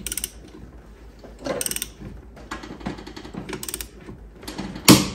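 Ratchet of a torque wrench clicking in short back-and-forth strokes as the clutch bolt is run down, then a single loud sharp click near the end as the bolt is pulled up toward 60 foot-pounds.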